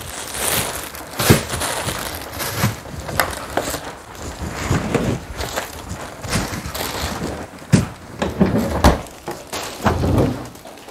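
Packaged goods being handled and put away into a refrigerator: crinkling packaging with irregular clicks and knocks as items are set down.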